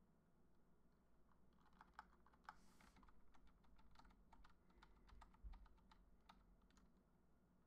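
Faint typing on a computer keyboard: a run of irregular key clicks starting about a second and a half in.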